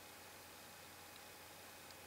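Near silence: a faint steady hiss with a low hum, room tone or recording noise.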